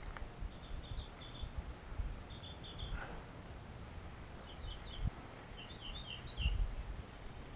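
A small bird chirping in four short runs of quick, high notes, over a low rumble on the microphone.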